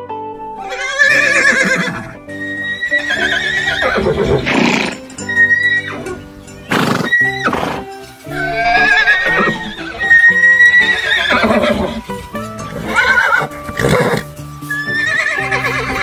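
Horses whinnying, one neigh after another every couple of seconds, over background music.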